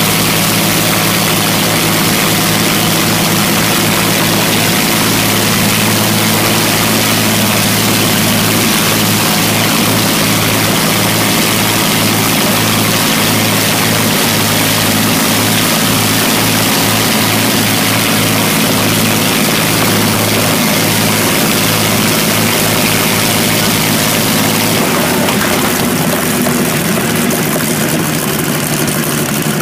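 Propeller-driven vintage warbird piston engines running loudly on the ground during an engine run, with a low note that beats on and off. About 25 seconds in, the engine note changes and the sound thins a little.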